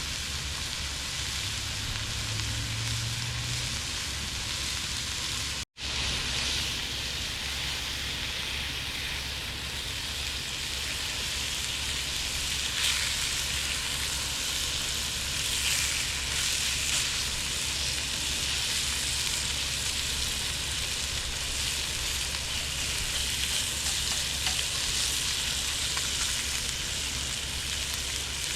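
Food sizzling and frying in a pan on a camp stove, a steady hiss with occasional stirring. The sound cuts out completely for an instant about six seconds in.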